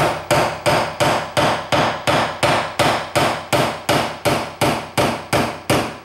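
Hammer tapping a small nail into a wooden cabinet face frame. The light strikes come in a steady rhythm of about three a second, and each rings briefly.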